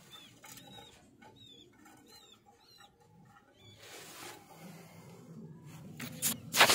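Young pigeons (squabs) peeping in a loft: a run of short, high chirps over the first few seconds. Near the end comes a loud rustle, the loudest sound here.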